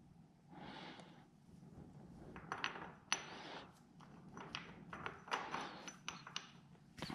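Faint, scattered light metallic clicks and clinks of a new motorcycle sprocket and its parts being handled and fitted.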